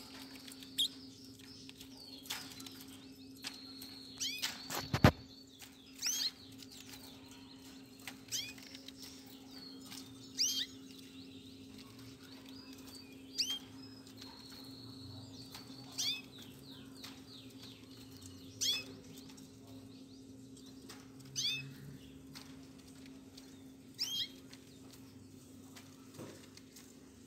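Caged canaries giving short, high chirp calls, one every two to three seconds, with a held high whistle now and then. A single sharp knock comes about five seconds in, over a steady low hum.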